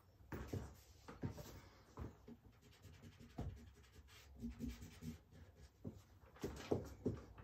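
Charcoal stick scratching and rubbing on drawing paper in short, irregular strokes.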